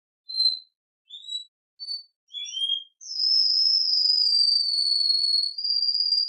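Domestic canary singing: about four short, high chirped notes, then one long whistled note held for about three seconds that sinks slightly in pitch.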